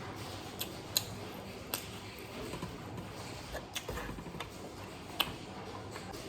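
Close-up eating sounds: chewing and mouth noises, with a handful of short sharp clicks, such as lip smacks, scattered through.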